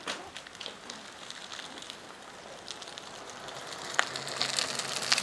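Bicycles riding past on wet asphalt: a soft hiss of tyres on the wet road that swells as they come near, with a few light clicks.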